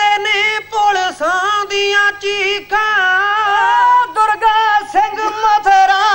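Male kavishri singers chanting Punjabi verse unaccompanied, in a loud declamatory style with long held high notes between quick bending phrases.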